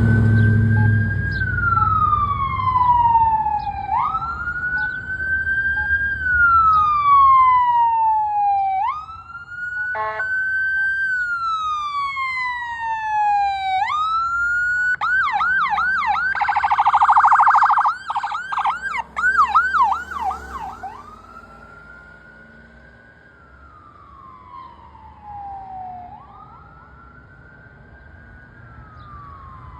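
Ambulance siren wailing in slow rising and falling sweeps, switching for several seconds to a rapid yelp, then back to the wail as it grows fainter. A short horn blast sounds about ten seconds in, and engine rumble is heard at the start.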